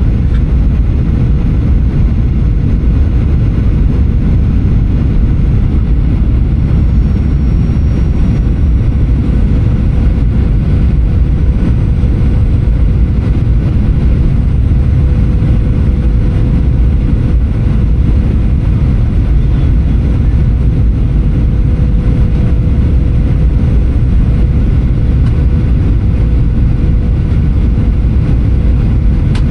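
Steady cabin noise of a Boeing 737-800 in flight: a loud, even low rumble of engines and airflow with a thin steady hum, unchanging throughout.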